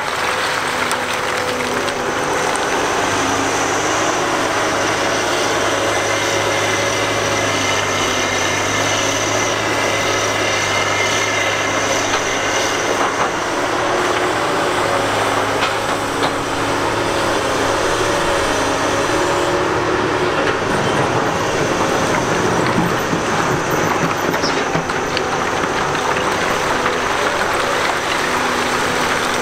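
Heavy diesel machinery, a Cat 245B excavator and a rock crusher, running together in a loud, steady mechanical din with several steady engine tones. A low hum comes in a few seconds in and fades about two-thirds of the way through.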